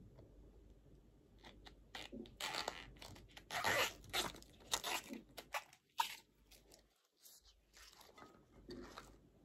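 Tough outer bracts of a banana blossom being pulled and snapped off by hand: a run of crisp snaps and rustles, heaviest a few seconds in, with a few fainter ones near the end.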